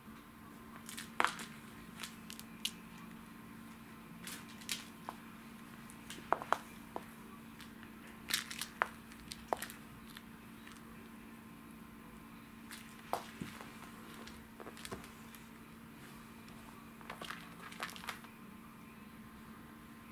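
A cat playing with a teaser toy on a wooden floor: irregular sharp clicks and scratches of claws and paws scrabbling on the floor and at the toy mouse, in clusters with pauses between. A faint steady hum sits underneath.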